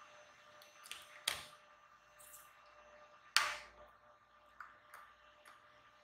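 Handling clicks as USB plugs are pulled apart and a small USB tester is set down on a plastic cutting mat: a few sharp clicks, with louder knocks about a second in and about three and a half seconds in.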